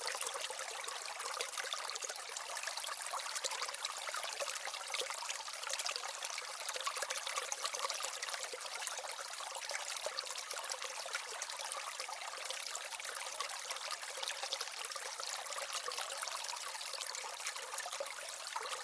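Steady trickling, running water: an even rushing noise with almost no low end, unchanged throughout.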